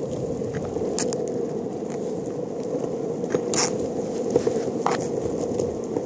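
Longboard wheels rolling over tarmac: a steady hum of wheel noise, with a few sharp clicks as they run over grit.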